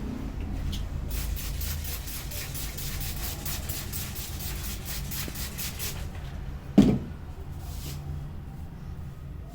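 Fast, even rhythmic strokes of hands on the hair and scalp in a head massage, about four to five a second, over a low steady hum. The strokes stop, and a single loud thump follows about seven seconds in.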